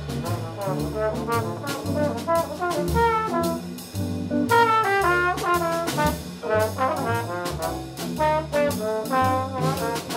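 Live small-group jazz: a trombone solos in quick melodic runs over upright bass, drums, piano and guitar.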